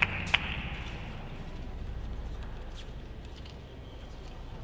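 A last sharp clap about a third of a second in, then the steady low rumble of a crowd in a large hall, slowly fading.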